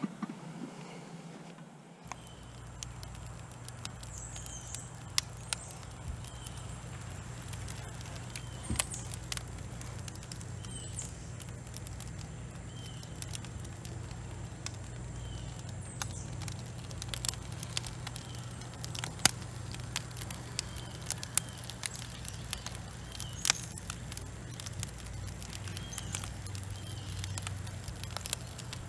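Lit charcoal briquettes under a cast iron Dutch oven crackling, with scattered sharp ticks and pops over a steady low hum.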